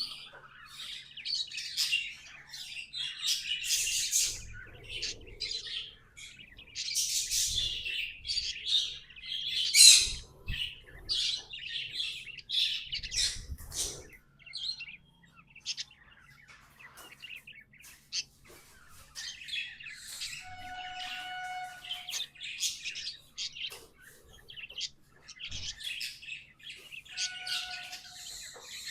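Budgerigars chattering and warbling in rapid high chirps, busiest in the first half and sparser later. About a third of the way in there is one sharp loud click, and twice in the second half a short, steady, pitched note sounds.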